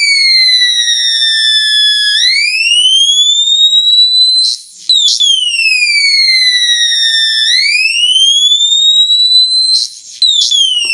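Homemade electronic police siren circuit wailing through a small speaker: a harsh tone slides slowly down and back up, about five seconds a cycle. At the top of each rise it cuts out briefly with a crackle, then starts again high.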